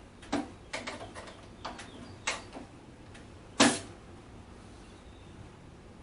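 Irregular clicks and knocks of tools and screws against the inverter's metal case as its cover is fastened shut, the loudest knock about three and a half seconds in.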